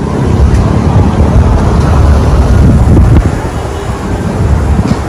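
Diesel locomotive approaching at the head of a passenger train: a loud, continuous low engine rumble.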